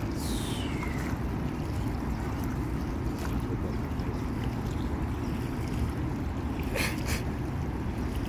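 Steady low rumble of wind on the microphone over the open river, with water moving. A short falling whistle at the very start and a couple of sharp clicks about seven seconds in.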